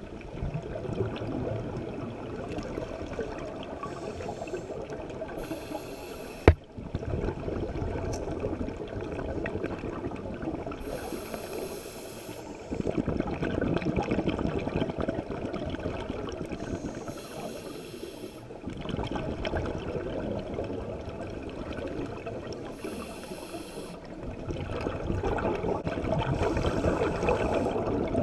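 Scuba diver breathing through a regulator underwater: a short hissing inhale about every six seconds, each followed by a longer rush of bubbling exhaust. There is one sharp click about six and a half seconds in.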